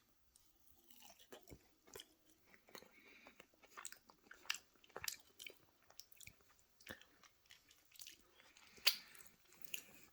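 Close-up chewing of a crunchy breaded broccoli-and-cheese veggie tot, with irregular sharp crunches and wet chewing, one crunch near the end louder than the rest.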